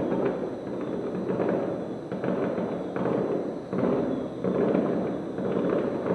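Fireworks heard from about 1.3 km away: a dense, unbroken barrage of bangs and crackling, dulled by the distance, that swells and dips every second or so.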